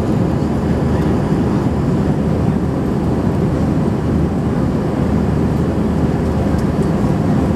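Steady low roar of jet airliner cabin noise heard from a window seat of an Airbus A320 climbing out after takeoff: its IAE V2500 turbofans at climb power and the rush of air along the fuselage.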